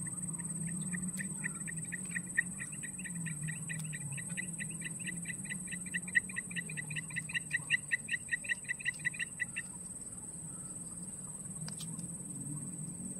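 A rapid rhythmic animal call, a train of short, evenly spaced pitched notes at about five a second, growing louder and then stopping suddenly partway through. A steady high-pitched whine runs underneath.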